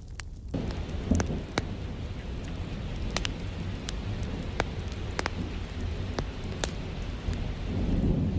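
Steady rain comes in about half a second in, mixed with the sharp, scattered pops of a crackling fireplace fire. A low thunder rumble swells near the end.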